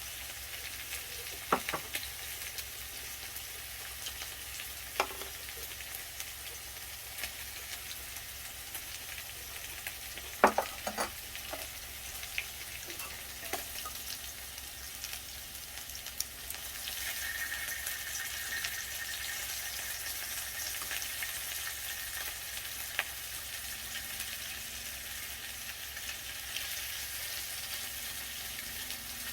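Beef frying in oil in a pan, a steady sizzling hiss with a few sharp knocks; the sizzle grows louder about 17 seconds in.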